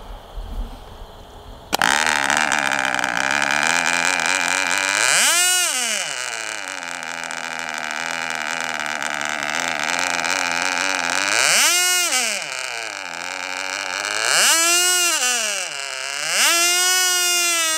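A Cox Conquest .15 two-stroke glow engine on a free-flight model catches suddenly about two seconds in and runs at high revs with a high-pitched whine. Its pitch sags sharply and climbs back three times, and near the end it wavers up and down.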